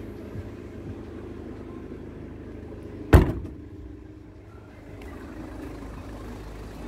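A Volkswagen Sharan's tailgate is shut with one loud thump about three seconds in, over a steady low hum.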